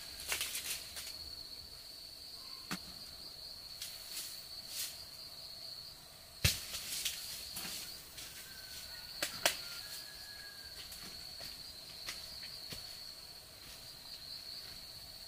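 Insects droning in one steady high note, with scattered sharp knocks and snaps over it; the loudest knock comes about six and a half seconds in.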